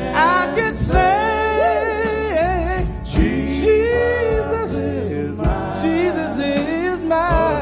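Male gospel lead singer singing into a microphone, with pitch-bending, ornamented sustained notes, over live band backing with bass and drum beats.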